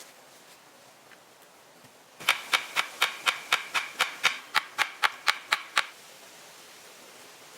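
A quick, even run of about fifteen sharp knocks, roughly four a second, each with a brief ringing tone; it starts about two seconds in and stops abruptly after three and a half seconds.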